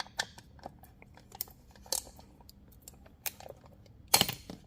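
Small metal parts being handled on a bench: scattered light clicks and clinks of bolts and hand tools, with a louder metallic clink about four seconds in.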